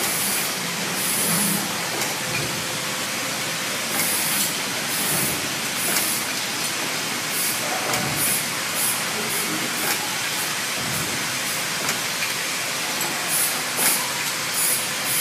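Drip-coffee sachet packaging machine running: a steady mechanical noise with short, high hissing bursts recurring about every second.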